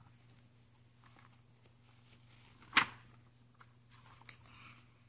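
Page of a hardcover picture book being turned: faint rustling of paper, with one sharp snap about three seconds in and a few soft taps around it.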